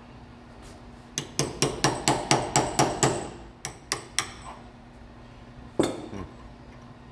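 Hammer tapping a small cold chisel against the old seal in an A833 transmission's bearing retainer snout, driving it to fold the seal in on itself for removal. A quick run of about ten sharp metallic strikes, about four a second, then three slower taps and one last strike near the end.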